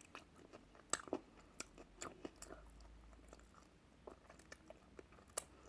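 A person chewing food close to the microphone: quiet, irregular mouth clicks and smacks.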